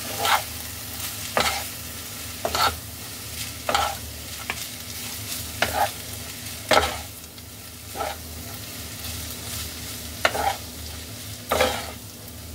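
A spatula scrapes and knocks against a non-stick kadai as boiled instant noodles are tossed in sauce, in sharp strokes roughly once a second. A faint frying sizzle and a steady low hum run underneath.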